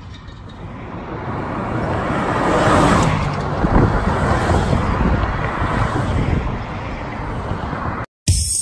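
Road traffic: cars and a pickup truck driving past on a street. The tyre and engine noise builds to its loudest about three to four seconds in as a vehicle passes close, then eases off, and the sound cuts off abruptly near the end.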